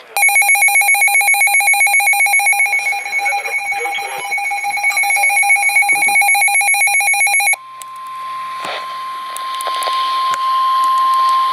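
Emergency Alert System alert tones. A loud pulsing attention tone sounds for about seven and a half seconds and cuts off abruptly. Then a single steady tone, the weather-radio warning alarm tone, sounds over radio static with a few clicks and grows louder.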